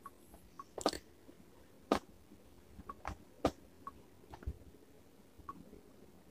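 Faint, scattered short clicks and ticks in a quiet room, about ten of them, the loudest about two seconds in.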